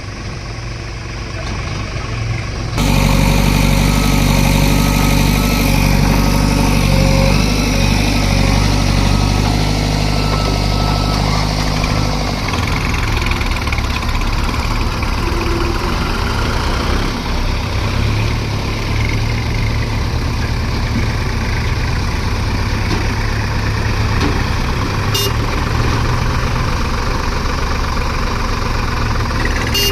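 Diesel engines of heavy machinery running steadily. The engine sound changes abruptly about three seconds in and again about twelve seconds in.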